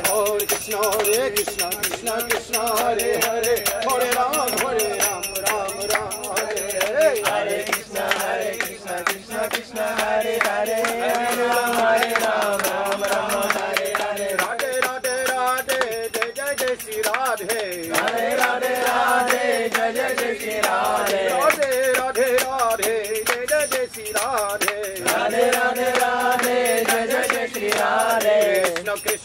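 A group of men chanting a Hindu devotional kirtan in repeated rising and falling phrases, with fast jingling hand percussion keeping the rhythm throughout.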